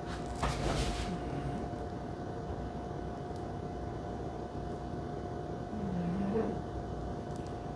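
Steady low background hum with a constant faint tone, broken about half a second in by a brief rustle of model packaging being handled.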